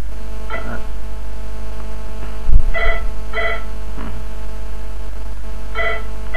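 Loud, steady electrical mains hum. Two pairs of short beeps sound about three seconds apart, one pair a little under three seconds in and the other near the end, and a low thump comes just before the first pair.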